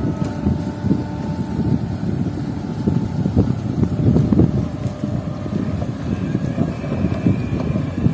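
Wind buffeting the microphone by the sea: a steady, gusty low rumble.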